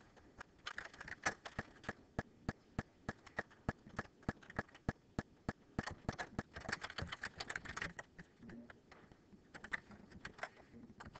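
Computer keyboard being typed on: a run of sharp, irregular key clicks, several a second, pausing briefly now and then and thinning out near the end.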